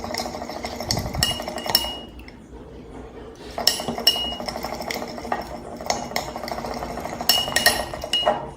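A utensil stirring a thick slime mixture of glue, boric-acid water and gouache paint in a container, clinking and scraping against its sides, with a short lull about two seconds in. The mixture is being worked until the slime firms up.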